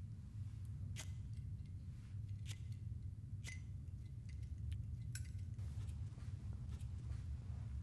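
A handful of sharp little clicks and snips, about a second or so apart, from a small object being handled at a desk. A steady low hum lies underneath.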